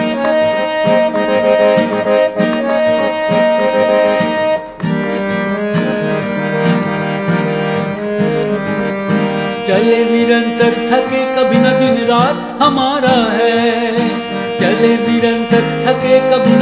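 Instrumental interlude of a song: held chords that change every few seconds, joined from about ten seconds in by a melody line that wavers and bends in pitch.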